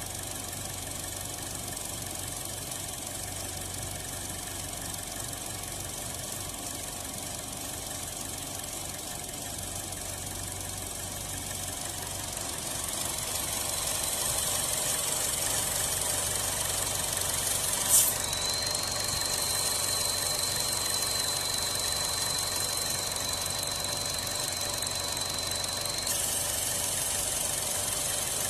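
A 2016 Buick Encore's 1.4L turbo engine idling, with the rough idle of a vacuum leak at the crankcase vent valve disc on top of the valve cover. About halfway through a high hiss builds; then a sharp click is followed by a steady high whistle that cuts off suddenly near the end.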